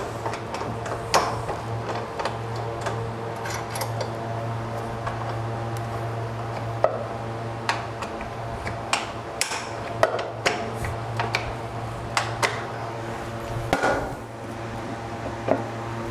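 Irregular metal clicks and taps as a catcher-lock knob is threaded and fitted onto a mild-steel adjustable bench's seat-adjustment lever, over a steady low hum.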